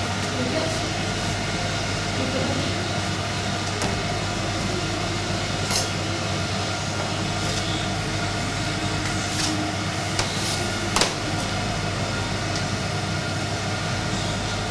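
Steady fan hum of a running commercial convection oven. A few light clicks and knocks of the knife and dough on the stainless-steel table, the sharpest about eleven seconds in.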